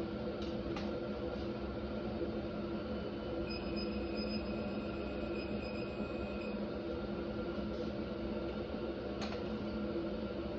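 Head studs being torqued to 25 foot-pounds with a digital torque wrench: a few light clicks and a high steady beep of about three seconds, over a steady hum.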